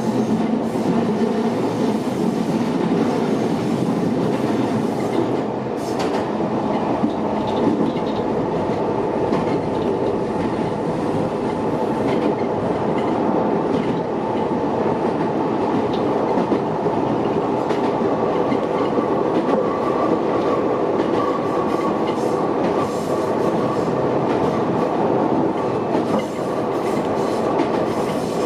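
Shintetsu electric train running on the track, a steady rumble with occasional wheel clicks, and a faint high wheel squeal in the second half.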